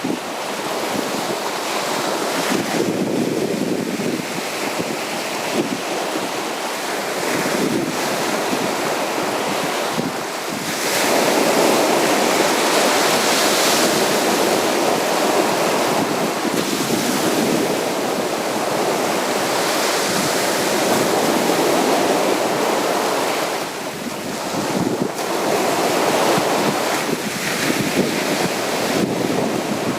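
Sea surf breaking and washing on a beach: continuous rushing water noise that swells and eases, loudest through the middle stretch.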